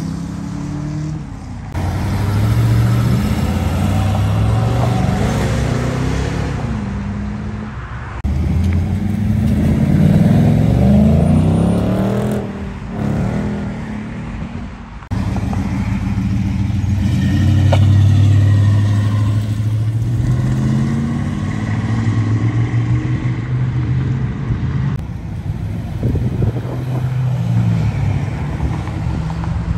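A string of cars accelerating away one after another, each engine revving up and dropping in pitch at every gear change, the loudest pull about halfway through. The sound cuts abruptly several times from one car to the next.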